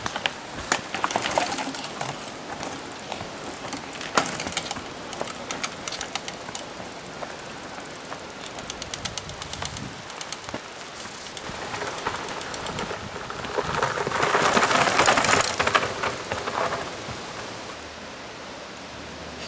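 Mountain bikes on a dirt forest trail: quick clicking and rattling from the bikes with tyres crunching over dirt and leaves, then a louder rush of tyre and trail noise about two-thirds through.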